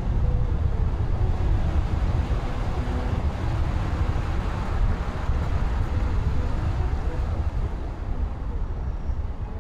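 Car driving along a road: a steady, loud low rumble of road and wind noise.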